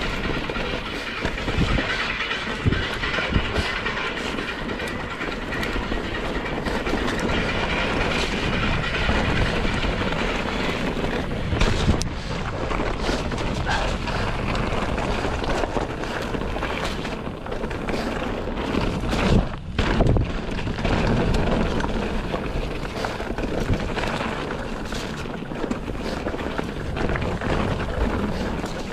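Mountain bike ridden over a rough trail: continuous tyre and rattle noise with frequent knocks from rocks and roots, the loudest clatter about twenty seconds in.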